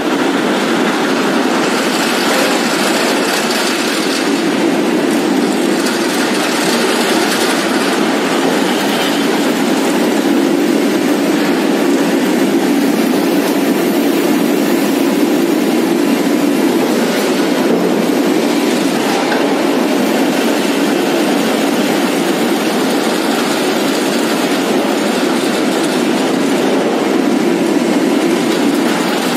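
Hot rolling mill for steel bar running: a steady, loud mechanical din from the rolling stands and roller tables as a red-hot steel bar is rolled and run out along the delivery channel.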